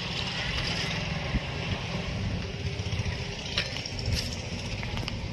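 Massey Ferguson 254 DI tractor's diesel engine idling steadily, a low even rumble, with a few faint clicks.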